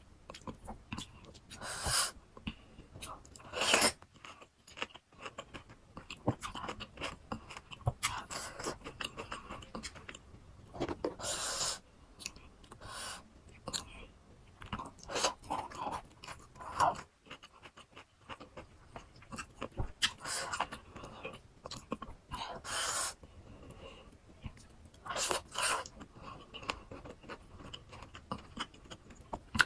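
Close-miked chewing of crunchy raw fruit pieces, with irregular crisp bites and crunches, a few of them much louder than the rest.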